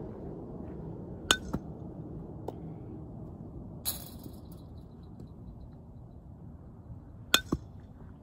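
Sharp clinking hits from softball ground-ball practice: a pair about a quarter second apart a little over a second in, a longer rattling hit near the middle, and another pair near the end, over a low steady outdoor background.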